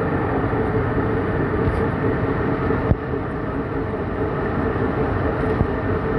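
Lathe running steadily with a constant mechanical hum, one sharp click about three seconds in.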